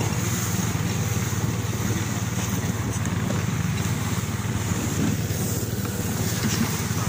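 Snowmobile engine running at a steady speed while riding, with wind rushing over the microphone.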